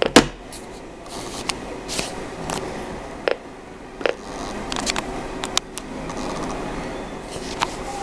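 Scattered sharp clicks and knocks at irregular intervals over a steady hiss, the loudest just after the start.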